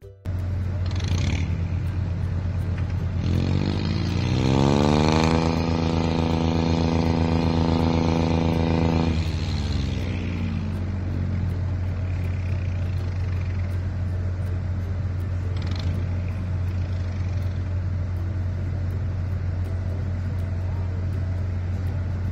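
Steady low machinery hum with a motor that revs up about three seconds in, holds a steady pitch for a few seconds, then winds back down.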